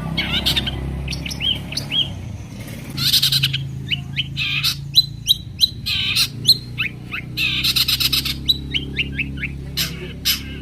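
Long-tailed shrike (cendet) singing: a rapid, continuous string of short sharp chirps mixed with several harsh raspy bursts, over a steady low hum.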